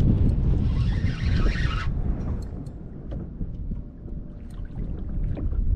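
Wind buffeting the microphone, a rough low rumble that eases off after about two seconds. A brief high whirring hiss starts about half a second in and cuts off suddenly at about two seconds, and faint small clicks are scattered through the rest.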